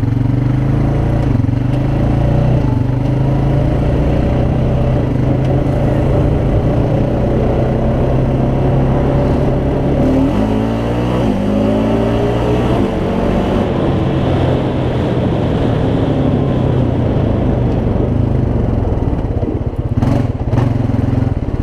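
Honda Rancher ATV's single-cylinder four-stroke engine running under way. Its pitch rises about ten seconds in as it picks up speed, then holds steady, with a couple of sharp knocks near the end.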